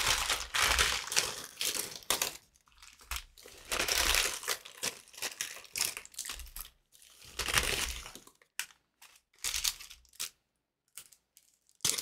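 Packaging crinkling as it is handled and opened, in irregular bursts with short pauses. There are a few small clicks in a quieter stretch near the end.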